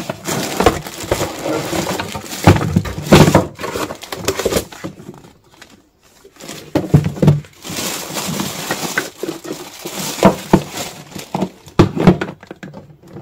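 Unboxing an electric egg boiler: cardboard box flaps and plastic wrapping rustling and crinkling, with clicks and knocks of plastic parts being handled, and a short lull about five seconds in.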